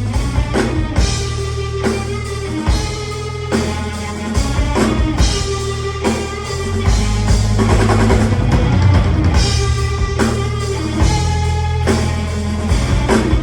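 Live rock band playing an instrumental passage: pounding drum kit, electric guitar and bass guitar.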